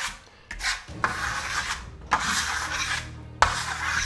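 A steel trowel scrapes over a plastered surface in repeated strokes of about a second each, laying on a very thin coat of Venetian plaster and pulling it straight back off hard.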